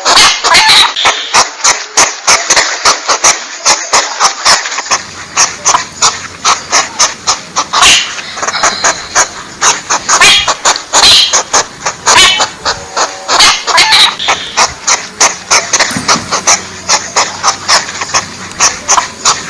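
A porcupine's calls: short, sharp sounds repeated several times a second in a fast, unbroken run, played as a lure recording. A low hum comes in about five seconds in, where the recording is spliced.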